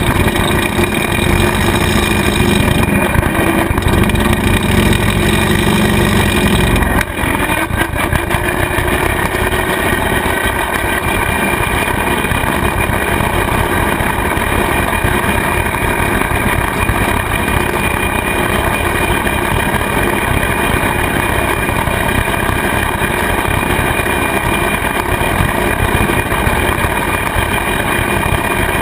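Kubota tractor's diesel engine running steadily while driving a rotary cutter (bush hog) through grass. A strong low hum drops away with a brief dip about seven seconds in, then the running stays even.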